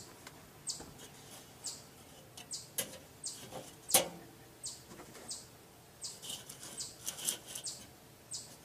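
Small birds chirping in short, high calls repeated every half second or so, with a couple of sharp metal clanks from a Weber kettle's hinged steel cooking grate being lifted; the louder clank comes about four seconds in.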